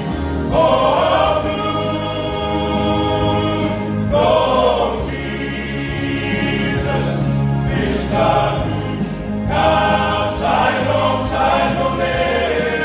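Men's choir singing a gospel hymn, voices holding long notes over steady low accompaniment notes.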